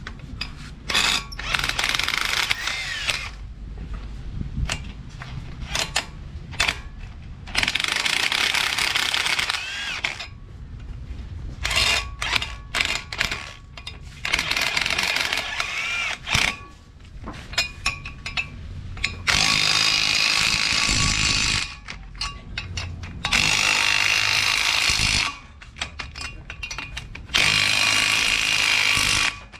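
Power tool running in about seven separate bursts of one to three seconds each, with brief pauses between, typical of bolts being run in or tightened.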